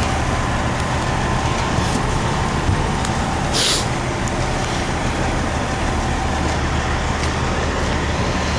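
Semi truck's diesel engine idling steadily, a low even hum, with a short air hiss about three and a half seconds in.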